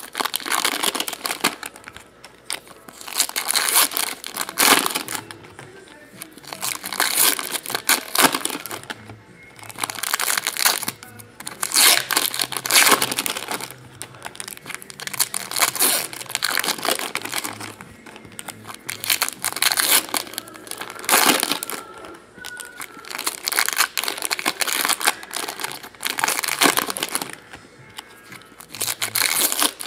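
Foil trading-card pack wrappers being torn open and crumpled by hand, a crinkling, tearing crackle in repeated bursts every second or two, with music playing underneath.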